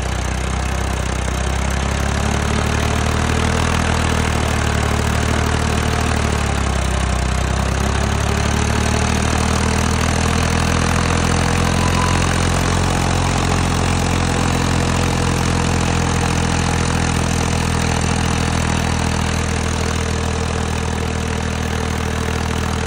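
Massey Ferguson 246 tractor's diesel engine running, its pitch wavering and dipping over the first eight seconds or so, then holding steady.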